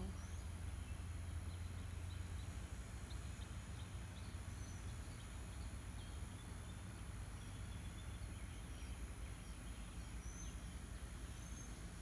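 Steady outdoor background noise with a low hum underneath, a faint high steady insect-like whine, and a few faint short chirps scattered through.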